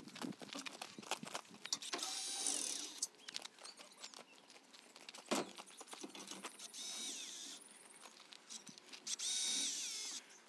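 Cordless drill driving screws into a plastic pallet and metal rails, in three short runs, each rising to a steady whine and then stopping. Between runs come knocks and clatter from the parts being handled, with one sharp knock about halfway through.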